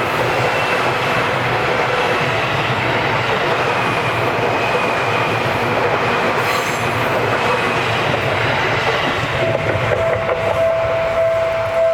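Seibu Shinjuku Line electric train passing over the level crossing, its wheels clattering over the rails in a steady, loud rush. Near the end a strong steady tone comes in and holds.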